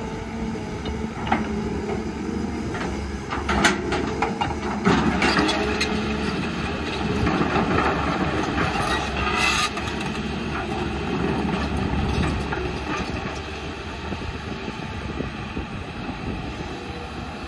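Heavy construction machinery's diesel engine running steadily, with scattered metallic clanks and rattles through the first five seconds or so. A loud noisy rush near 9 s in cuts off suddenly.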